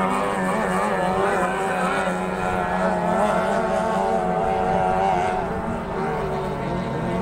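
Racing speedboat's outboard engine running at speed: a steady low drone with a higher engine whine wavering in pitch, which fades a little after five seconds in.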